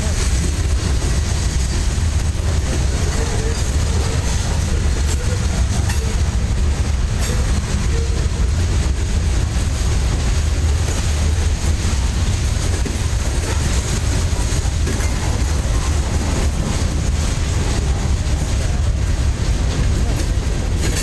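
Freight train of covered hopper cars rolling past: a steady low rumble of steel wheels on the rails, with a few faint clicks.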